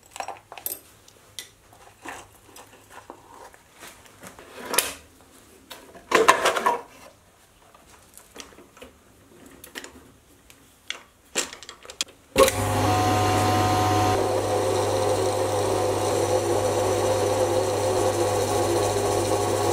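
Light clicks and a few clattering knocks as small metal parts and the lathe's way cover are handled. About twelve seconds in, a mini lathe starts running steadily under cut: the motor's low hum with a dense cutting noise as it machines a solid steel blank.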